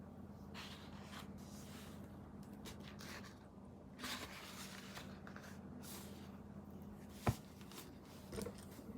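Quiet room tone with a faint steady hum, a few soft rustles, and one sharp click about seven seconds in.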